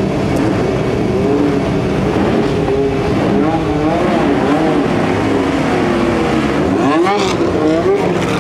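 Several vintage racing car engines idling together on the grid and being blipped, their overlapping pitches rising and falling. A quick, sharper rev comes about seven seconds in.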